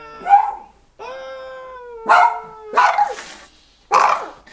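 Small white dog howling: long held whining notes that sag slightly in pitch, then louder, rougher cries about two, three and four seconds in.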